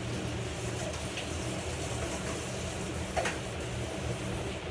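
Steady watery hiss from raw chicken being rinsed under a running kitchen tap, mixed with a wide pan of water at a rolling boil. Two light knocks come about a second in and about three seconds in.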